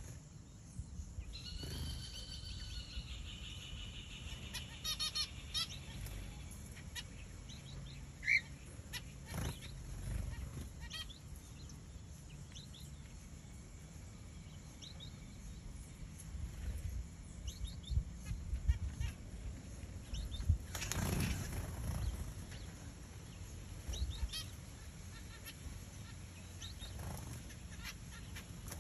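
Button quail calling: a drawn-out call about two seconds in, then a quick run of short notes and a single chirp, with scattered faint chirps after, over a low rumbling background. A brief noisy rustle comes about two-thirds of the way through.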